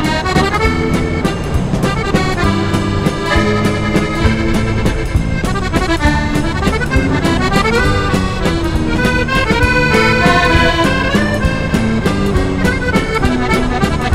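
Accordion music: a quick, running melody over a steady beat.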